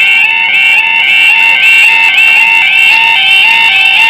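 British level crossing warning alarm (yodel alarm) sounding, a loud fast-repeating warble of rising stepped tones, as the crossing barriers come down.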